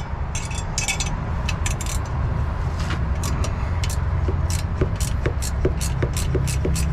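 A 7/16 ratchet clicking as it loosens a turbo hose clamp on a Cummins diesel. The ticks come in short clusters at first, then settle into a regular run of about two to three a second, over a steady low rumble.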